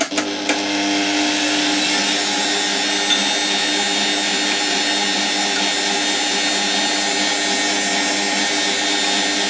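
Bosch stand mixer switching on and running steadily at speed, its motor and beater working through egg yolk batter.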